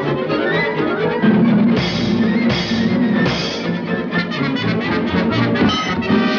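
Lively orchestral cartoon score with brass and drums, punctuated by three loud crashing hits about two, two and a half and three and a half seconds in, then a quick run of sharp percussive hits.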